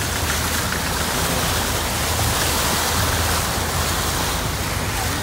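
Steady rush of water spraying from a car's wheels as it ploughs through deep floodwater on the road, with a low engine hum underneath.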